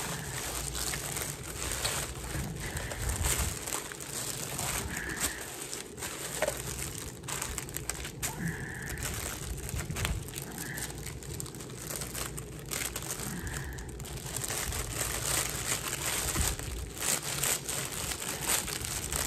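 Plastic packaging bags and bubble wrap crinkling and rustling in uneven bursts as a parcel is unwrapped.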